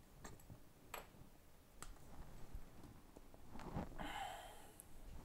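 Faint clicks and handling noise as small tools and a smartphone are moved about on a repair bench, with a short hiss about four seconds in.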